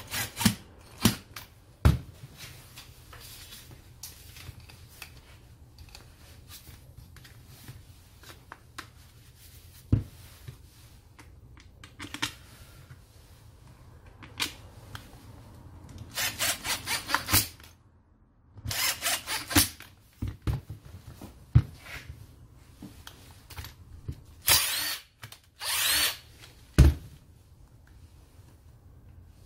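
Cordless drill/driver running in several short bursts of a second or two each, with clicks and knocks of metal grinder parts being handled in between.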